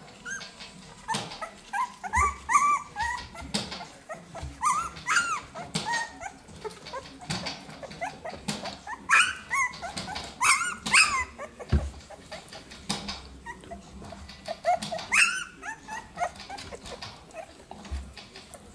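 Two-week-old puppies whimpering and squeaking: short, high, rising-and-falling calls coming in clusters, most of them in the first half and around the middle.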